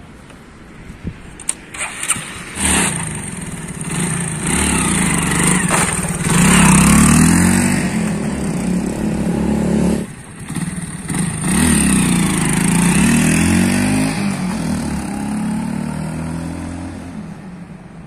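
Hero Glamour 125 cc single-cylinder motorcycle engine starts about two and a half seconds in, then revs hard as the bike pulls away and accelerates, its pitch climbing again and again. There is a short dip around ten seconds in, then it accelerates once more and fades as it rides off. This is a test ride on freshly fitted clutch plates, and the engine's pull is reaching the wheel with strong pickup.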